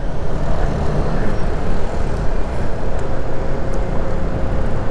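Yamaha NMAX 155 scooter riding at road speed: a steady engine drone under heavy wind rumble on the microphone.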